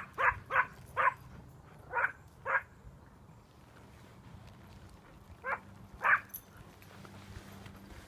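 A dog barking at a calf it is driving, in short sharp yaps: a quick run of six in the first two and a half seconds, then two more about five and a half and six seconds in.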